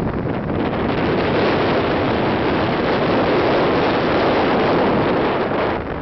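Strong wind blowing across the camera's microphone, a loud, steady rushing that grows louder about a second in and eases just before the end.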